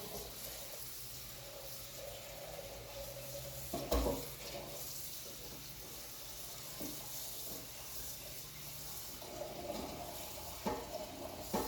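Kitchen tap running as a bread maker pan is washed and filled to soak. There is a sharp knock about four seconds in and two lighter knocks near the end.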